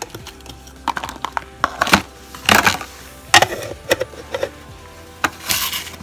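Dried chili pods crackling and clattering as they are dropped by hand into the plastic bowl of a mini food chopper, with a few sharp plastic knocks; background music underneath.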